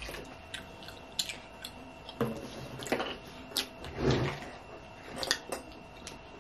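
Scattered small clicks and taps of eating: fingers and a plastic fork picking at nacho chips and cheese dip on a paper plate, with a short, louder, low mouth noise about four seconds in.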